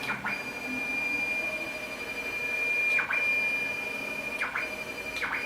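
X axis of a homemade desktop CNC machine traversing under its drive motor: a steady high whine with a mechanical rumble beneath. It breaks off briefly about three seconds in and again about four and a half seconds in, where the axis stops or reverses.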